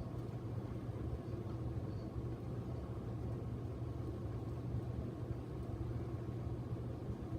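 Casablanca Ventura II ceiling fan running, giving a steady low motor hum.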